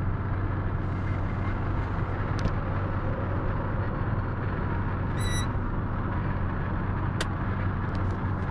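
Steady engine and road drone inside a van's cabin at motorway speed. A brief high squeak comes about five seconds in, with a few faint clicks.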